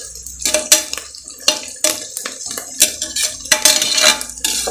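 Metal ladle scraping and clinking irregularly against the inside of a metal pressure cooker as sliced onions, green chillies and curry leaves are stirred while they sauté in oil.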